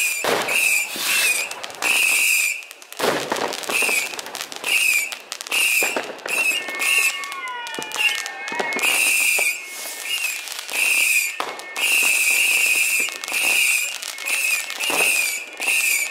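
New Year's Eve fireworks going off one after another: rockets and firecrackers with repeated sharp bangs and crackling. A falling whistle sounds about seven to nine seconds in.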